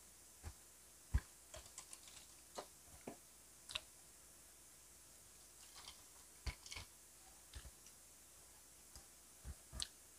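Scattered soft clicks and taps, close to the microphone, from hands handling glass drink jars and barbecue skewers on a plate; the loudest tap comes about a second in.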